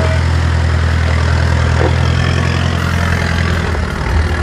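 A 4x4 vehicle's engine running steadily at low revs, a constant low drone.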